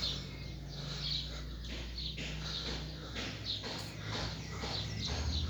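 Small birds chirping repeatedly, short high calls every half second or so, over a low steady hum.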